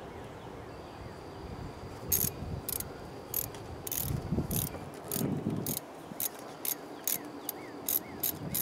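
Sharp clicks of a ratcheting hand tool tightening a hose clamp on a car's air intake tube. They begin about two seconds in and come about two to three times a second, with some low rustle of handling in the middle.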